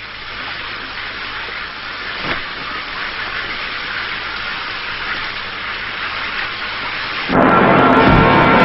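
Steady hiss of falling water, building slightly. About seven seconds in, a loud droning sound made of many sustained tones cuts in suddenly over it.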